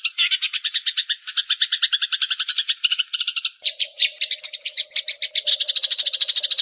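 Recorded songbird calling in a fast, unbroken chattering trill of rapid pulses, more than ten a second. About halfway through the pattern changes and a steady lower tone joins it.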